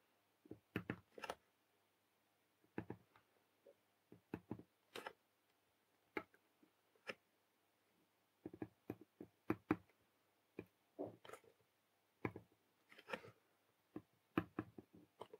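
Faint, irregular small clicks and ticks as a soldering iron and solder wire touch the pads of a circuit board while each pad is tinned with a little solder.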